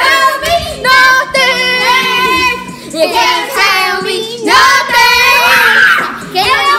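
Children singing loudly along to a rap-country song that plays in the background from a smart speaker.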